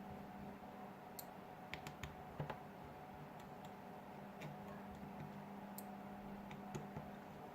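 Scattered light clicks and ticks of a small screwdriver and tiny screws being worked out of a Samsung Galaxy S6's midframe, irregularly spaced, with a small cluster about two seconds in. A faint steady hum lies underneath.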